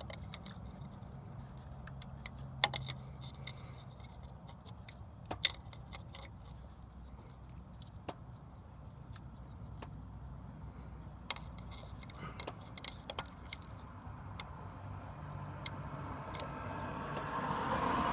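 Small scattered clicks and crackles of electrical tape and wiring being handled over a steady low hum. Near the end a passing vehicle swells up and fades.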